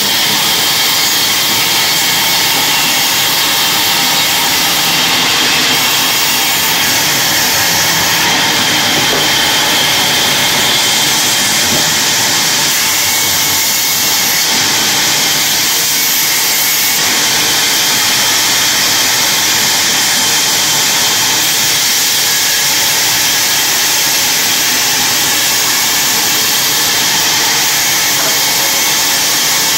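Large vertical log bandsaw running with its blade sawing lengthwise through a log, a loud steady hiss with a faint high whine through it.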